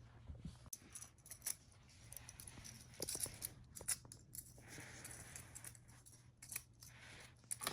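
Faint, irregular clicking and clattering of small plastic magnetic building blocks being handled and snapped together.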